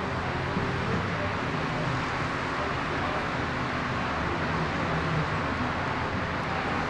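Steady outdoor background noise, a low rumble and hiss that holds even throughout, with no distinct hoofbeats or other single sounds standing out.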